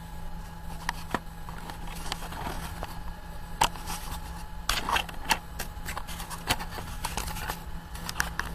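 Irregular clicks, taps and rubbing from fingers handling a small action camera, with a cluster of sharper knocks about five seconds in, over a steady low hum.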